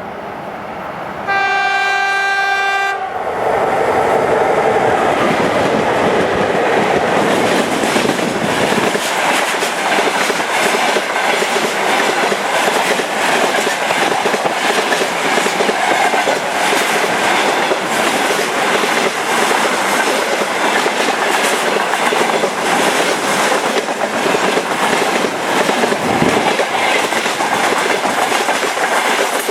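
VL80R electric locomotive sounds its horn once, a steady chord lasting about a second and a half, then the locomotive and its loaded freight wagons roll past close by: a loud, continuous rumble of wheels with the clickety-clack of wheels over rail joints.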